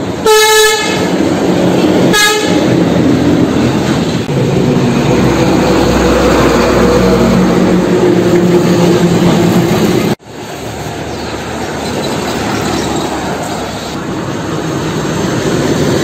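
A vehicle horn honks twice, a longer blast and then a short one about two seconds later, followed by the diesel engines of heavy trucks running as they pass close by. The sound breaks off about ten seconds in and another truck passes, growing louder.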